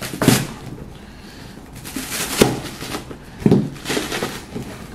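Hand patting and handling a taped cardboard shipping box: a few separate dull knocks and rustles.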